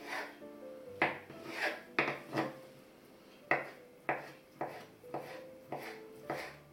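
Kitchen knife dicing a boiled potato on a wooden cutting board: about a dozen knocks of the blade on the board, roughly two a second, with a short pause midway.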